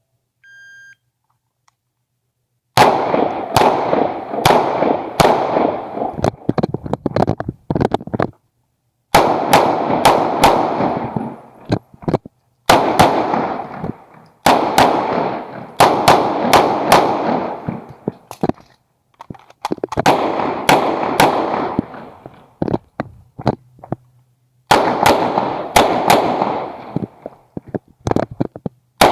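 A shot-timer beep, then an Uzi Pro 9mm pistol firing strings of rapid shots, echoing, with short pauses between strings.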